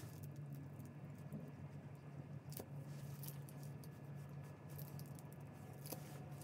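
Quiet room tone with a steady low hum and a few faint, short clicks.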